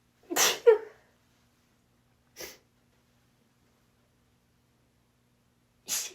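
A woman sneezing: a quick pair of sneezes about half a second in, a brief quieter burst of breath at about two and a half seconds, and another sneeze starting right at the end.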